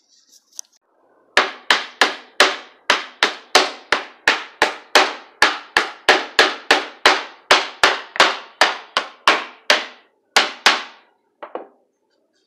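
Claw hammer tapping steadily on wooden letters glued to a board, seating them in the glue: about three sharp blows a second for some nine seconds, then two lighter knocks.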